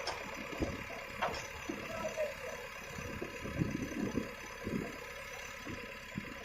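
JCB 3DX backhoe loader's diesel engine running at idle, with irregular low thuds and clunks from the machine scattered through it.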